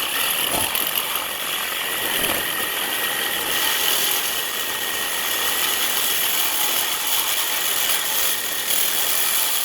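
Cordless DeWalt reciprocating saw running steadily, its blade cutting through the steel exhaust pipe beside the resonator.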